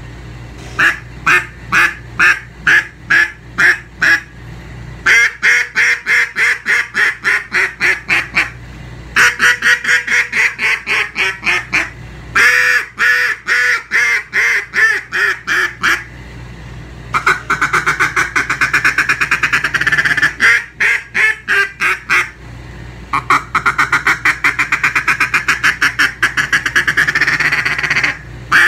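Scallywag cutdown duck call with a 10 mil reed, blown by mouth in hen mallard quacks: groups of separate quacks, some longer notes that fall in pitch, then two long runs of very fast chattering notes. The call has a bark with a deep, raspy tone.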